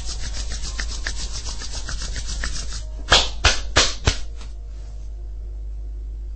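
Palms rubbed briskly together in a quick, even run of scraping strokes, then three or four loud brushing thumps about three seconds in as the hands move up to cup over the ears.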